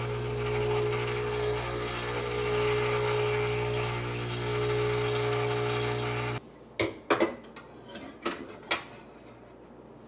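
Gevi GECME418E-U espresso machine's pump humming steadily while hot water runs through the brew head into a steel pitcher; it cuts off suddenly about six seconds in. A few sharp clinks and knocks follow as a glass is set on the metal drip tray.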